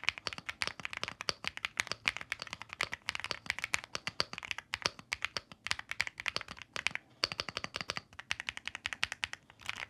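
Fast typing on a BOYI AL65 65% mechanical keyboard in a CNC aluminium case: a dense, uneven run of keystroke clacks, broken by short pauses.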